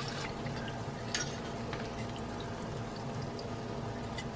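Corn dogs deep-frying in a pot of hot oil: steady sizzling and bubbling, with scattered small pops.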